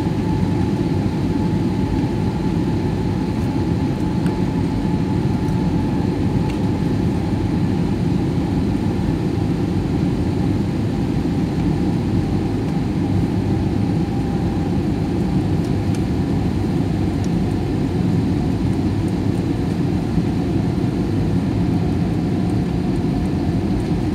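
Steady cabin noise of an airliner on its landing approach, heard from a window seat: a constant low drone of engines and rushing air, with a faint high whine above it that sinks slightly in pitch.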